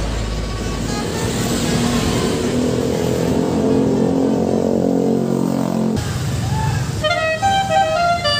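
Bus engine and road noise, then after a cut about six seconds in a Basuri 'telolet' multi-tone bus horn starts playing a melody of short stepped notes.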